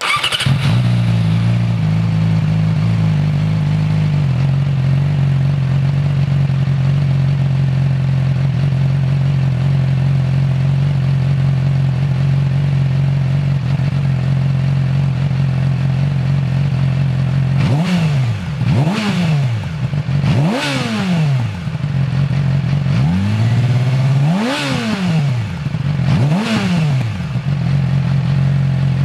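2008 Yamaha R6's 600 cc inline-four on its stock exhaust, starting up and idling, settling slightly lower after a few seconds. Later it is blipped five times, the revs rising and falling quickly each time before dropping back to idle.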